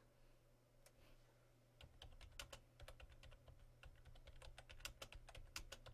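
Faint typing on a computer keyboard: quick, irregular key clicks that start about two seconds in.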